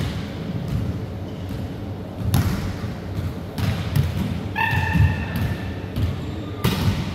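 A volleyball and players' feet thudding on a wooden sports-hall floor, each thud echoing round the large hall, with a brief squeak about two-thirds of the way in.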